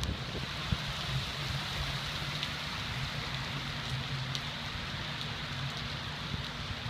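Steady rain hiss with scattered faint drip ticks, over a low steady hum.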